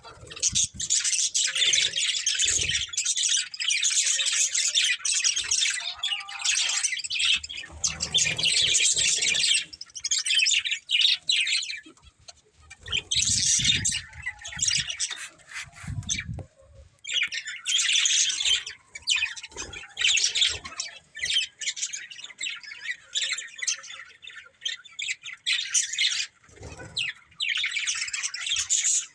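Budgerigars chattering and chirping in a busy, high-pitched warble, with a few brief lulls.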